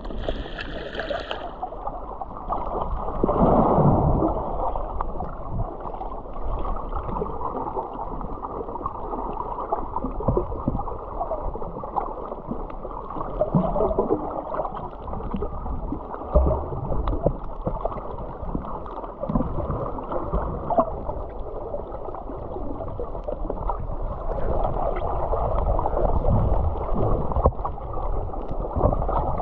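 Muffled sloshing and gurgling of water picked up by an action camera held underwater while swimming.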